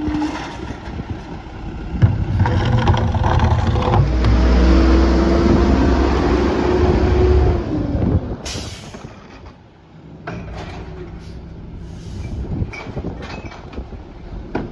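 Mack MR garbage truck's diesel engine revving up and holding for about six seconds while the Heil Powertrak rear loader's hydraulic packer runs, a steady whine over the engine. A short burst of air hiss about eight seconds in, then the truck idles with scattered knocks as bins are handled.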